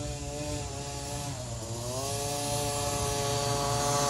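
Small youth dirt bike engine revving under throttle. The revs ease briefly about a second and a half in, then climb higher and hold, growing louder as the bike approaches.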